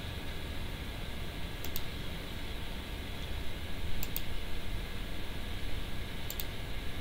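Computer mouse clicking three times, about two seconds apart, each click a quick double tick of press and release, over a steady hiss and low hum.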